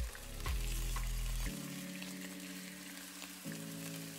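Chicken breasts sizzling in hot oil in a frying pan as they are turned, a steady crackling hiss, over background music with held notes.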